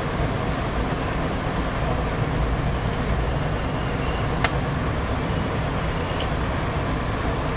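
Steady low background rumble and hiss with no clear rhythm or tone, and a single sharp click about four and a half seconds in.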